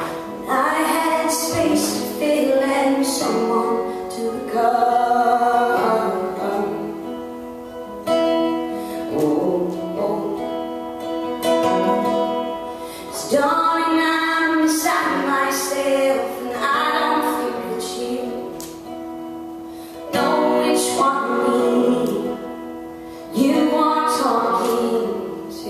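A woman singing a song live, with held notes in long phrases, accompanying herself on an acoustic guitar.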